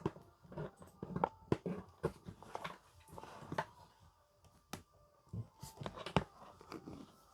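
Scattered light clicks, taps and knocks of a small portable speaker and its cables being handled and set up, coming irregularly a few times a second.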